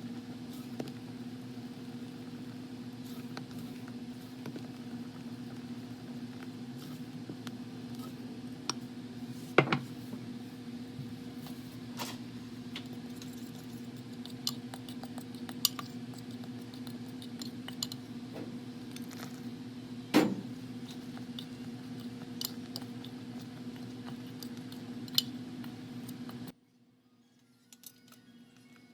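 A steady low electric hum, like a small appliance motor running, with scattered light clinks and knocks of kitchenware. The hum cuts off abruptly a couple of seconds before the end.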